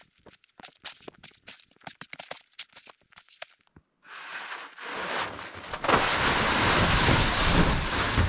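A snow shovel scraping and tapping at packed snow on a roof edge, many small scrapes and crunches. Then, after a short gap, a swelling rush as the roof's heavy snow load slides off the corrugated metal roof all at once and comes down. The rush is loudest from about six seconds in.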